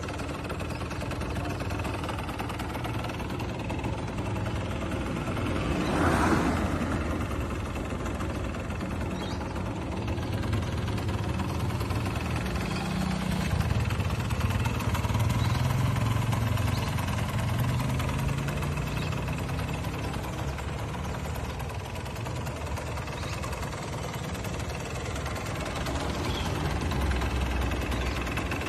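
Kawasaki KMX 125 two-stroke single-cylinder engine idling, with a brief louder burst about six seconds in and the engine note rising and falling a little further on.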